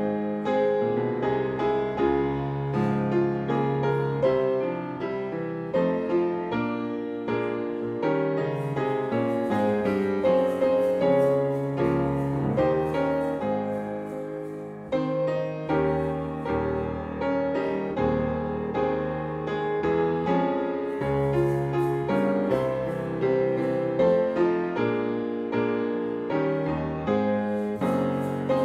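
Solo grand piano playing a flowing piece, a steady stream of notes and chords.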